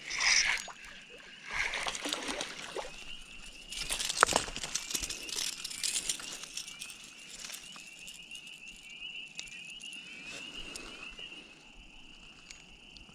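A small fish flopping in dry grass and dead reeds, rustling and crackling the stalks in several bursts. The busiest and loudest stretch, with a sharp crackle, comes about four seconds in. The rustling dies away over the second half, leaving a steady high trill in the background.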